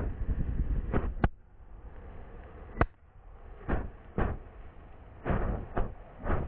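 Fireworks going off: a string of about eight separate sharp bangs at irregular intervals, each fading quickly.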